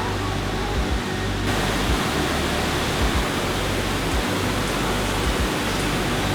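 Steady rushing roar of a large waterfall, growing fuller and brighter about a second and a half in.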